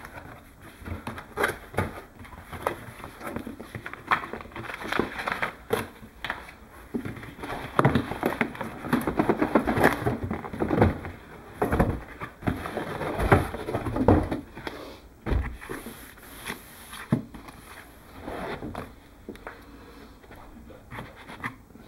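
Cardboard shipping box being opened and handled: flaps bending and cardboard scraping and rustling as the boxed speaker is worked out, with two dull thumps around the middle.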